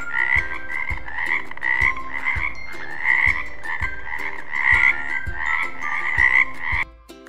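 Frog croaking over and over, about two croaks a second, stopping about a second before the end.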